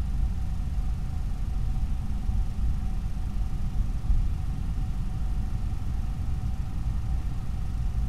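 Steady low rumble with an even hiss and a faint steady whine above it: background noise on a night trail camera's recording, with no distinct event.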